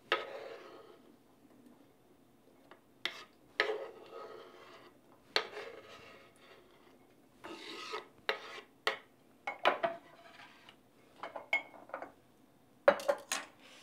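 Irregular scrapes and knocks of a kitchen utensil as chopped onion, lemon and garlic are moved into a jar. There are a dozen or so short strokes, a second or more apart at first and closer together near the end.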